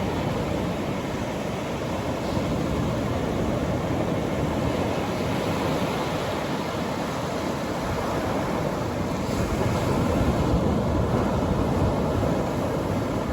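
Atlantic Ocean surf breaking and washing on a beach, a steady rush that swells a little louder about two-thirds of the way through.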